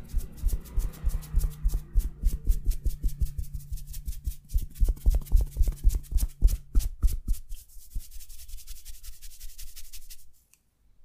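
Hands rapidly striking the body in percussive tapping massage, about five strikes a second with heavy thuds. Near the end the strikes turn lighter, then stop suddenly.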